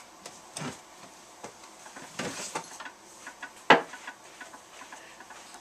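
Light handling noises: scattered small clicks, knocks and rustles of objects being moved about, with one sharper click about three and a half seconds in.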